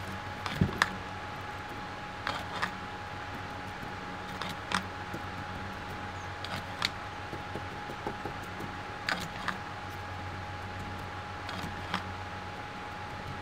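Electric desk fan running with a steady hum and a thin whine, with scattered light clicks and knocks as a plastic bottle of paint thinner and a paintbrush are handled and the brush dabs at a circuit board.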